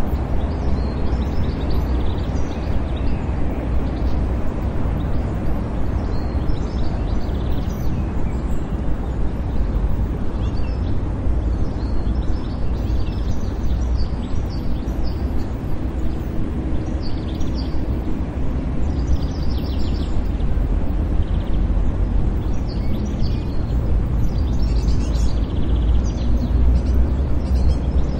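City park ambience: a steady low rumble like distant traffic, with small birds chirping on and off over it.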